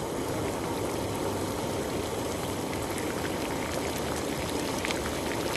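Water at a rolling boil in a stainless steel saucepan with whole spices (ginger, cardamom, cinnamon stick), the first stage of karak tea: a steady bubbling with small scattered crackles.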